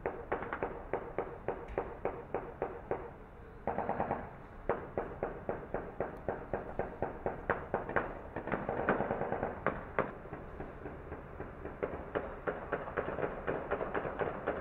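Rapid gunfire, shot after shot at about four a second with short echoing tails. A droning pitched sound joins in twice, about four and nine seconds in.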